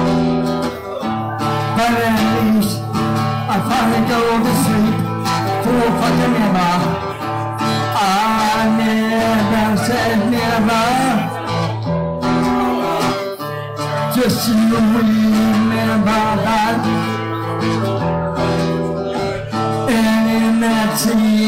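Solo acoustic live music: chords held and changed every second or two, with a man's voice singing over them in places.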